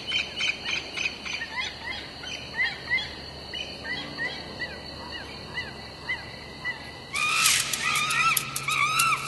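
Nature ambience: a steady high insect drone with repeated short chirping bird calls. About seven seconds in, a louder noisy burst sets in with bigger rising-and-falling honking calls.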